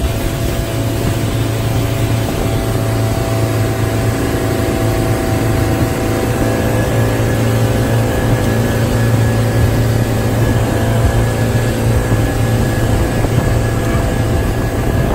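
Motorboat engine running steadily at speed with a low hum, over the rush of its wake and spray.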